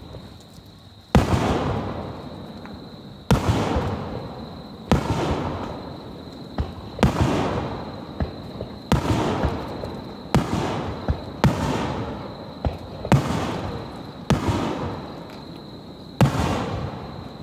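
Aerial firework shells bursting: about a dozen sharp booms at uneven intervals of one to two seconds, each dying away in a long echoing tail, with a few smaller pops between them.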